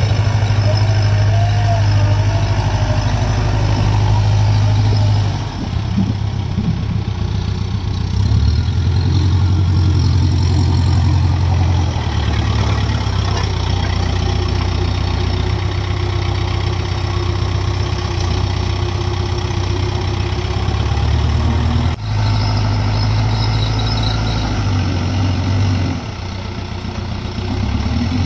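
Heavy diesel engine running, with a deep, steady low note that dips and picks up again several times, around five and a half, twelve, twenty-two and twenty-six seconds in, as the load on it changes.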